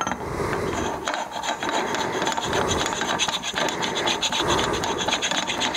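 Motion Pro steering-bearing puller's metal tube being twisted down by hand on a steering stem's thread: a steady metal rasping made of fine rapid ticks, with a faint high ring.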